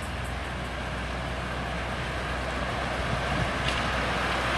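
Ridden miniature live steam locomotive, a model of a NSW 36 class, running toward the microphone with a train; its rushing running noise grows steadily louder.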